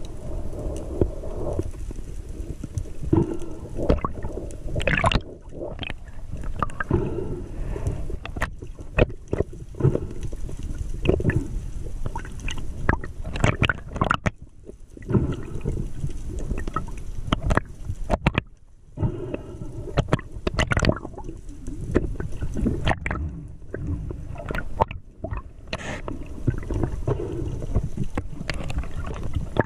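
Muffled water noise picked up underwater by a diver's camera while spearfishing: irregular gurgling and sloshing of water moving past as the diver swims, with scattered knocks and clicks.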